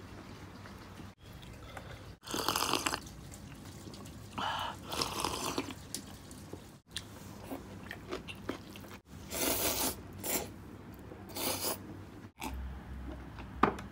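A person eating a big bowl of spicy Korean fire-chicken instant noodles, slurping and chewing them in short separate bursts. The sound is broken by several abrupt cuts.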